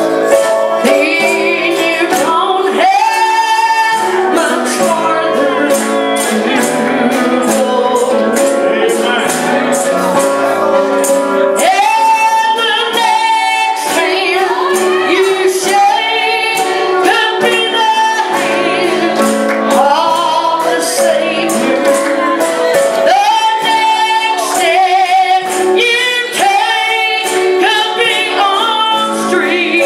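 Live gospel singing with instrumental accompaniment, a sung melody over held chords and a steady beat of sharp percussion strokes.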